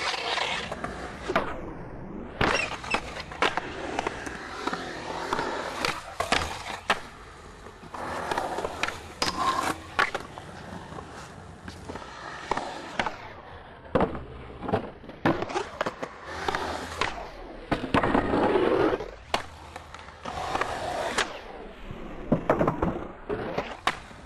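Skateboard wheels rolling over concrete, broken by many sharp clacks of tails popping and boards landing.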